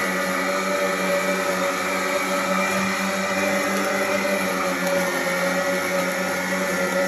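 Craftsman 40V cordless electric lawn mower running steadily as it is pushed through tall grass and weeds: an even electric-motor and blade whine over the rush of cutting, with no change in pitch.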